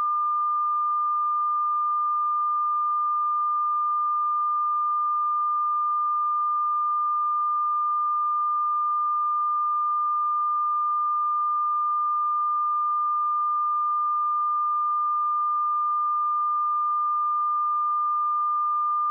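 A pure 1202 Hz sine-wave test tone, held steady and unbroken at a constant level.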